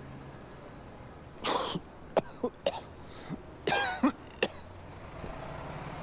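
A man coughing in a short fit, about half a dozen coughs over some three seconds, brought on by a drag on a cigarette.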